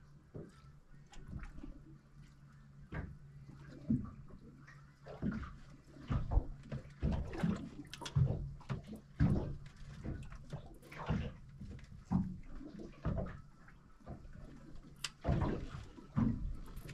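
Water slapping and lapping irregularly against the hull of a small drifting motorboat, over a low steady hum.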